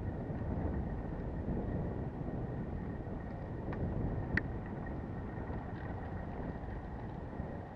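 Wind buffeting a bike-mounted camera's microphone over the rumble of road-bike tyres rolling on a gravel lane, with one sharp click about halfway through.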